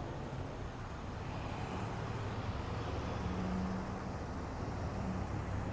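Motor vehicle engine running at a steady idle, a low hum.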